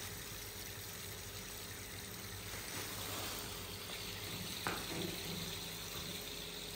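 Granulated sugar pouring in a thin steady stream from a plastic bag into a plastic tub of water, a soft continuous hiss as it goes in to be dissolved. One sharp click about two-thirds of the way through.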